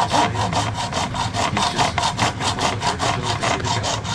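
Small hand saw cutting through a mounting post on a model locomotive in quick, even back-and-forth strokes, about six a second.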